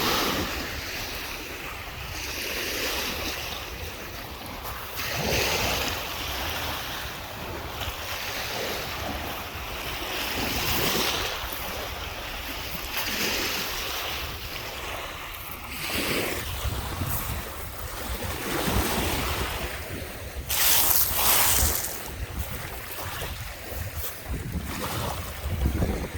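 Lake Michigan waves breaking and washing onto the shore, swelling and falling back every few seconds, with one louder wash near the end. Wind rumbles on the microphone throughout.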